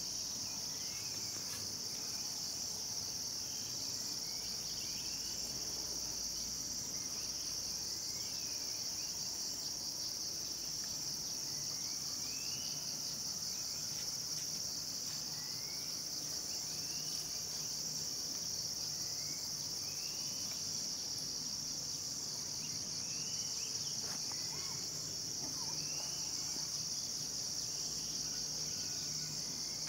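Steady, high-pitched insect chorus, with a faint short rising chirp repeating every second or two.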